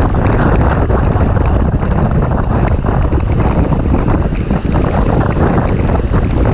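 Wind buffeting the microphone of a moving motorcycle ridden in the rain: a loud, steady rush with scattered sharp ticks.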